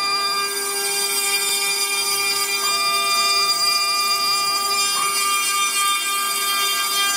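CNC router spindle running with a steady high whine as its end mill cuts a pocket into a pine board.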